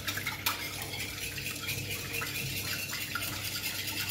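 Wire whisk beating milk, water and egg in a glass bowl: rapid, uneven clicking of the wires against the glass over the sloshing of the liquid.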